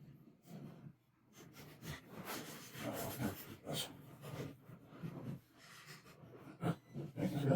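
Irregular rustling and scraping from hands working the electrical wires and connectors of a wall timer switch as it is wired in.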